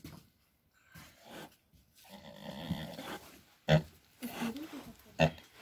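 Vietnamese pot-bellied boar grunting as it is held down on its back: a longer grunt, then two short, loud, sharp grunts in the second half.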